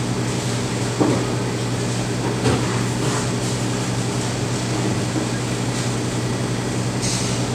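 Steady low machine hum, with ice cream mix being poured from a measuring pitcher into a batch freezer and a couple of soft knocks, about a second in and again about two and a half seconds in.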